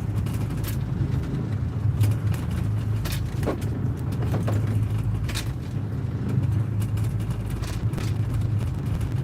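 Fishing boat's engine running with a steady low hum, with a few sharp clicks and knocks over it.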